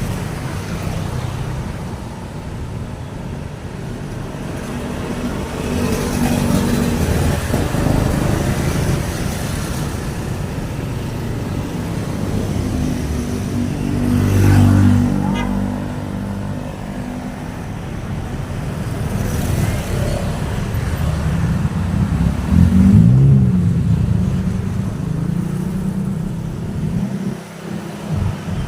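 Road traffic: a continuous run of vehicle engines and tyres passing by. Two vehicles go by louder, with a brief change in engine pitch, about halfway through and again about three quarters of the way in.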